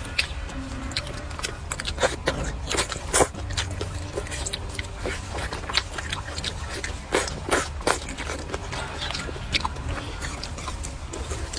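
Close-up eating sounds: irregular bites, crunches and chewing of food, with scattered short clicks, over a steady low hum.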